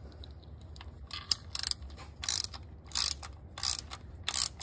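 Socket ratchet clicking through about six short strokes, starting about a second in and repeating every two-thirds of a second or so: the drain plug of a Chevy Volt's electric drive unit being run back in after a fluid change.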